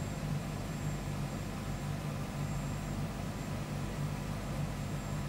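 A steady low hum of a running machine or motor, unchanged throughout.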